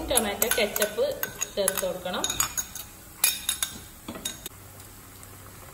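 Metal spoon clinking and scraping against a ceramic bowl as thick ketchup is scraped out into a wok, with a run of sharp clinks over the first four seconds, the loudest a little past three seconds.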